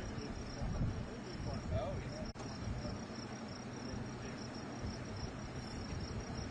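Insects chirping in a steady, pulsing rhythm, with a low, uneven rumble underneath.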